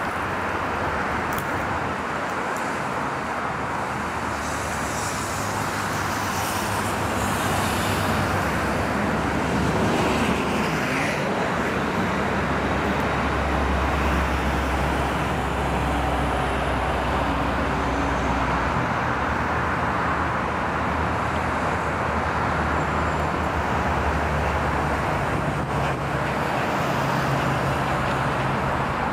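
Steady vehicle noise: a continuous rumbling hiss with a low hum that shifts in pitch a few times.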